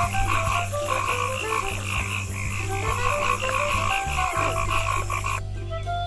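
Frogs calling in a dense chorus of rapid, evenly repeated pulses, which stops abruptly about five seconds in. Background music with a steady bass plays underneath.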